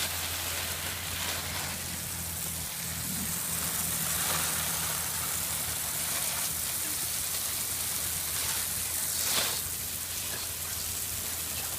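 Steady hiss of falling water spattering on the ground, from garden-hose spray and rain, with a brief louder rush about nine seconds in.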